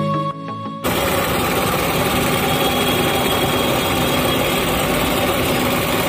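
Electric motor-driven grinding machine running steadily, grinding chopped greens fed into its hopper; it starts abruptly about a second in, cutting off music.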